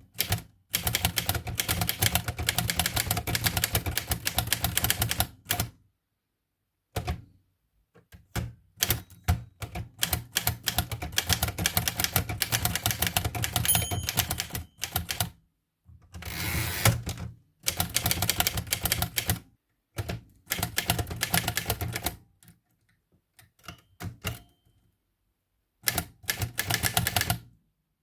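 1941 Erika Model M portable typewriter typing in quick bursts of keystrokes broken by short pauses. Partway through, the margin bell rings once and the carriage is then returned with a brief sliding, ratcheting sound before the typing resumes.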